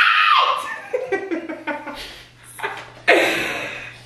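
Young women laughing and squealing: a rising squeal at the start, giggles, then a loud burst of laughter about three seconds in.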